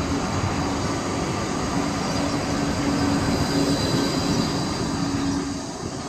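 Gold Coast G:link Bombardier Flexity 2 light-rail tram running past along the platform: a steady rumble with a low electric hum and a faint high whine, growing quieter near the end as it pulls away.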